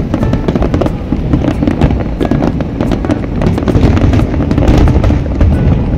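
Fireworks barrage: many shells bursting close together, a dense run of bangs and crackling over a constant rumble, growing louder about four seconds in.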